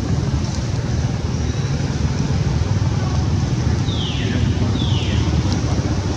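Steady low wind rumble on the microphone. About four and five seconds in come two short high calls, each falling in pitch.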